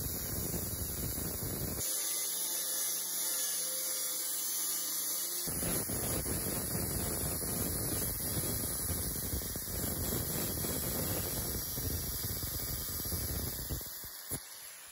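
Angle grinder with a thin cut-off disc cutting through sheet metal: a steady high whine with the rasp of the disc in the metal. The lower grinding noise thins out for about three seconds, starting about two seconds in, then returns. The sound dies away near the end.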